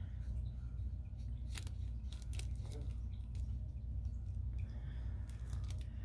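Light scratches and ticks of a water brush pen on watercolor paper, in two short clusters, one about a second and a half in and one near the end, over a steady low hum.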